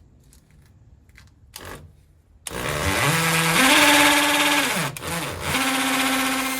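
Power drill boring into mortar in a brick wall, heavy going. The motor starts about two and a half seconds in and speeds up in steps, slows and nearly stops briefly about five seconds in, then picks up again and runs steady.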